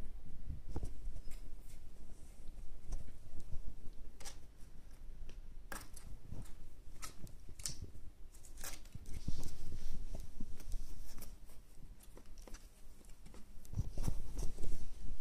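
Kittens play-fighting: scuffling and pattering of paws with scattered sharp clicks and low thumps, busiest around the middle and near the end.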